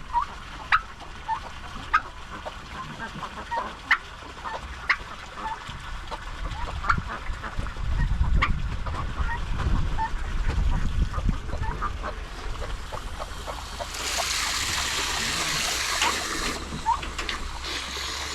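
Barn poultry calling: short, sharp calls repeated roughly once a second. A low rumble comes in around the middle, and a rush of hissing noise follows for a couple of seconds near the end.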